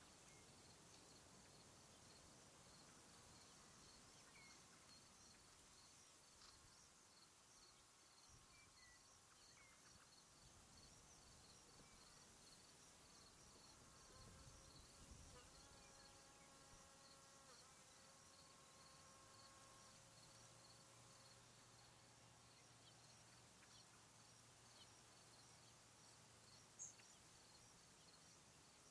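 Near silence: faint meadow ambience with insects chirping in an even, repeating rhythm, a faint hum for a few seconds midway and a single small tick near the end.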